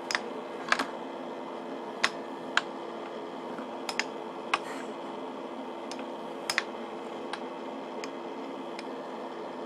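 Air hockey puck clacking against the mallets and the table's rails at irregular intervals, about a dozen sharp clicks, over the steady hum of the table's air blower.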